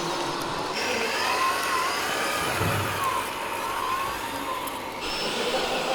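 Radio-controlled model trucks whining from their electric motors and gearboxes, the pitch rising and falling as they speed up and slow down. The sound changes abruptly about a second in and again near the end.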